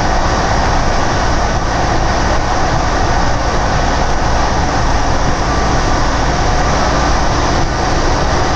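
Orlyval VAL rubber-tyred automated light-metro car running at a steady speed through a tunnel, heard from inside the car: a constant, loud rolling and motor noise with no clickety-clack of rail joints.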